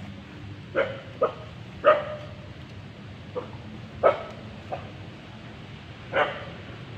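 An animal giving short, sharp bark-like calls, about seven in all at irregular intervals, over a steady low hum.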